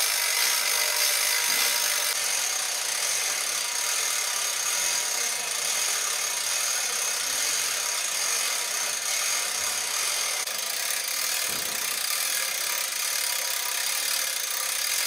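A hand winch hauling a cannon on its wooden wheeled carriage up a perforated steel trailer ramp, with the wheels rolling on the metal. It makes a steady grinding rasp.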